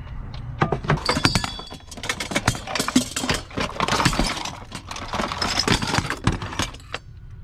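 Metal pots, pans and cookware clattering and knocking against each other as they are rummaged through in a cupboard: a rapid, irregular run of clanks and rattles.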